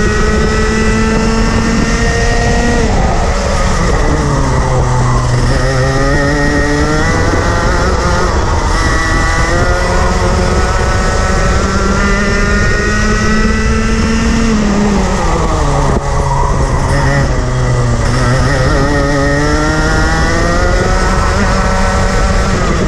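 Junior Rotax kart's 125 cc two-stroke single-cylinder engine heard onboard at racing speed, its pitch climbing steadily along the straights and dropping sharply three times as the driver lifts and brakes for corners.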